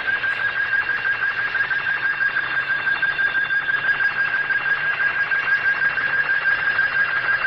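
Synthesized electronic tone, held steady at a high pitch with fast pulsing, like an alarm.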